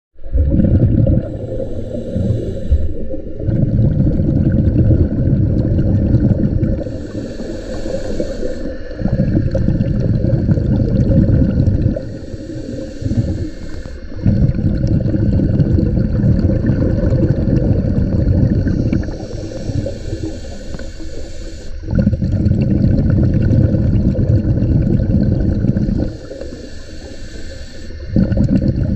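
Scuba diver breathing, heard underwater: a short hiss of inhaling through the regulator, then a longer rumble of exhaled bubbles. The cycle repeats about every five to six seconds, five times.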